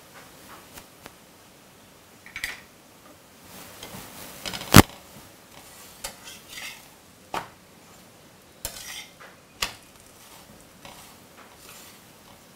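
A metal turner scraping and knocking on an iron tawa as a flatbread is pressed and turned: scattered clicks and taps over a faint background, with one loud knock about five seconds in.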